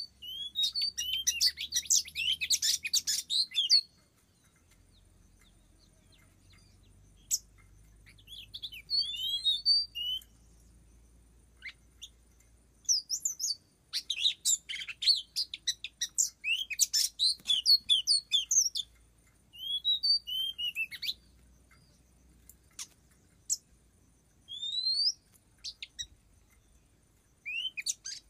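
Oriental magpie-robin (kacer) singing: bursts of rapid chirps and quick rising and falling whistled notes, in phrases a few seconds long with pauses between them.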